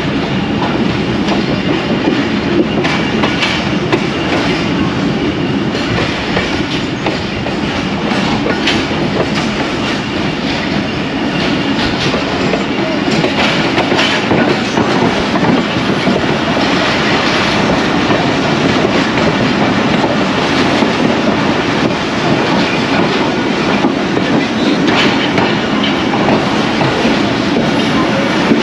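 Passenger train running on the rails: a steady rumble of the coach wheels with the click of rail joints.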